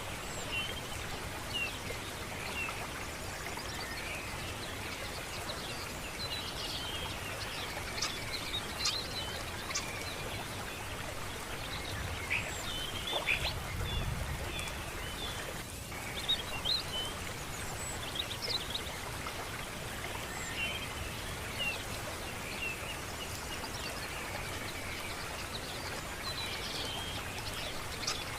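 Birds chirping and calling again and again over the steady rush of flowing water.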